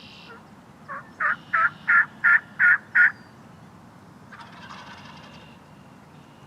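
A turkey yelping: a run of seven loud, evenly spaced yelps, about three a second. A fainter, rougher bird call follows about a second and a half later.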